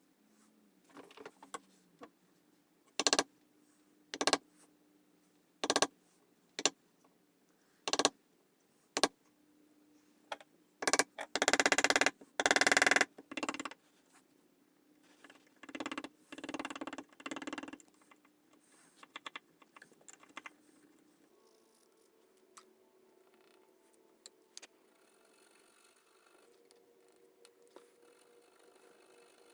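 Hand-tool work at a bench: a series of separate sharp knocks, then two runs of quick, loud scraping or rasping strokes, followed by a few faint clicks.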